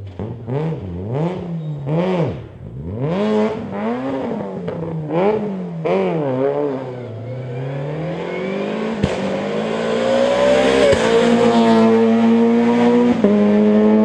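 Peugeot 106 hillclimb car's engine, revved sharply up and down about once a second through a tight hairpin. It then pulls hard with a long rising note and two gear changes, getting louder as it approaches. Two sharp cracks come a couple of seconds apart in the middle of the pull.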